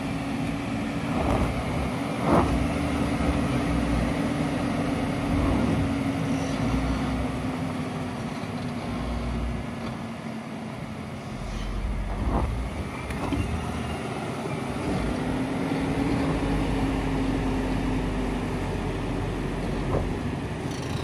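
An off-road vehicle moving slowly over rough ground: a steady hum that dies away and later comes back, with several sharp knocks and thumps, the loudest about two seconds in.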